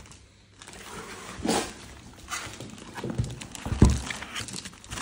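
Cardboard box being handled: dull thumps and knocks, several in a row about three to four seconds in, after a single short sharp sound about a second and a half in.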